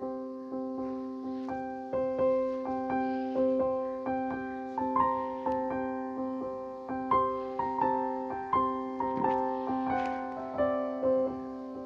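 Background music: gentle piano or electric piano playing a slow melody of struck notes over sustained chords.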